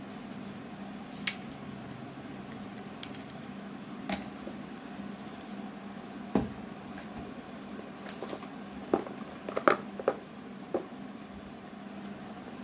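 Hands handling smartphone packaging: scattered light taps, clicks and rustles of cardboard and paper, busiest a little after the middle as the iPhone XR is lifted from its box tray, over a steady low hum.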